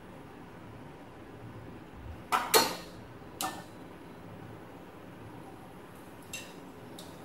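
Metal kitchen utensils clinking: a wire-mesh strainer knocks against a steel frying pan of hot oil. There is a loud pair of clinks about two and a half seconds in, another a second later, and two fainter ones near the end, over a steady low background.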